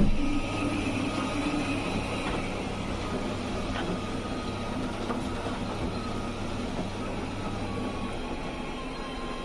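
Robot vacuum running with a steady mechanical whir and low hum; the hum drops away about eight seconds in.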